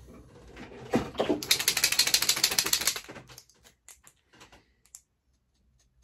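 Paint marker being shaken, its mixing ball rattling in a fast, even run of clicks for about a second and a half, after a couple of handling knocks. A few faint scattered clicks follow as it is put to use.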